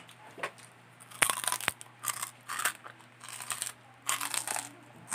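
Crispy deep-fried pork rinds (chicharon) crunching as they are bitten and chewed close to the microphone, in a run of irregular crunches. The crunch is the sign of a well-crisped, puffed rind.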